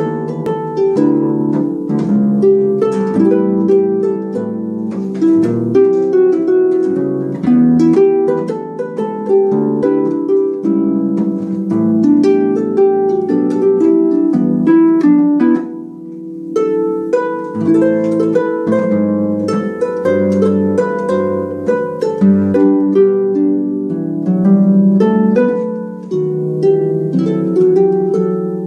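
Concert pedal harp played solo: a jazz tune plucked with both hands, chords and melody over low bass notes, with a brief lull about halfway through.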